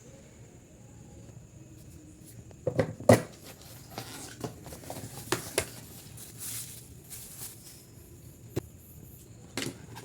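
Handling noises from unboxing a smartphone: a series of sharp taps and clicks with some rustling of packaging, the loudest knock about three seconds in.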